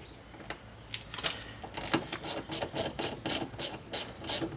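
Hand ratchet clicking steadily, about three to four clicks a second, as a door-panel screw is backed out; a few light taps of the tool being fitted come first.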